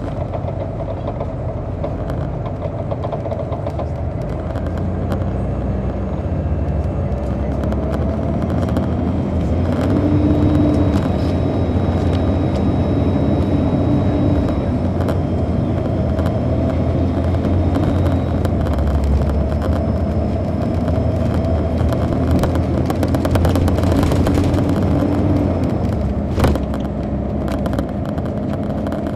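Detroit Diesel Series 60 diesel engine of a 2002 MCI D4000 coach, heard from the rear seats inside the bus while it drives. The engine note grows louder from about a third of the way in as it pulls, then eases off near the end, with one sharp knock shortly before it does.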